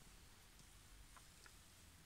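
Near silence: quiet room tone with a few faint, very short high blips.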